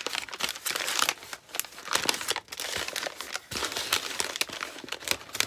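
Brown kraft packing paper being unwrapped and crumpled by hand: a continuous irregular crinkling and crackling.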